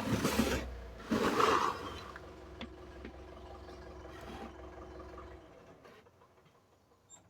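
Kawamoto N3-156SH well pump's electric motor running with a steady hum, which stops about five and a half seconds in; the seller describes the motor noise as abnormal. Two loud noisy bursts come in the first two seconds.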